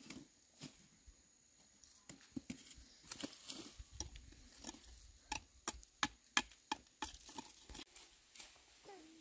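Scattered light taps and clicks, then a run of five sharp knocks about three a second, between five and seven seconds in.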